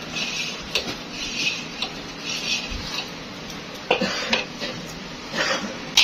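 A scraper and metal rod scraping and knocking against a spouted iron pan as they push out hot sugar syrup for batasha drops. The strokes come in an uneven rhythm about every half second to a second, with a few sharper metal clicks, the loudest near the end.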